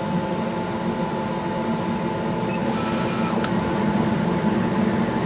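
Chinese laser cutter running a slow test cut on corrugated cardboard: a steady hum and rush of machine noise, with a short faint whine and a click about three seconds in as the cutting head moves.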